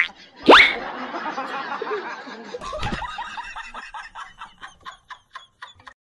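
Dubbed comedy sound effects: a sharp rising slide-whistle glide about half a second in, then a quick run of short laughter-like notes, about five a second, fading away.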